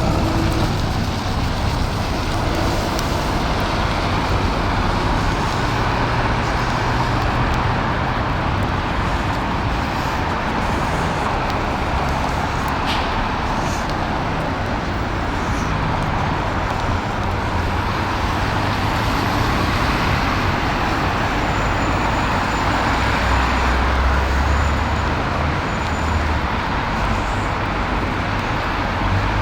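Steady city road traffic: a continuous wash of passing cars and other vehicles, with a low rumble under it.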